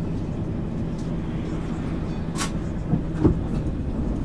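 MAN ÜL 353 intercity bus under way, heard from on board: a steady diesel engine drone with road noise. A couple of short rattles from the body come a little past halfway and near the end.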